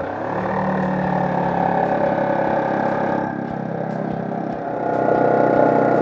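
A motor starts abruptly and runs steadily for several seconds, with a low hum and a shift in its tone about three seconds in.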